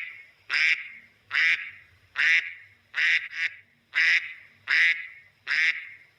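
A duck quacking over and over, a steady series of short nasal quacks a little over one a second.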